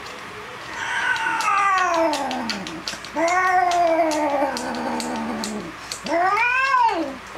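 Tabby cat yowling while being mounted by a male during mating, the caterwaul of a cat in heat. Three long drawn-out yowls: the first two slide down in pitch, and the last, near the end, rises and then falls.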